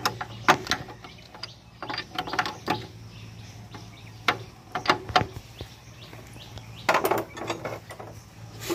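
Irregular metallic clinks and knocks of gears and shafts being handled and shifted by hand inside an opened Sifang power tiller gearbox, with a small cluster of clatter near the end.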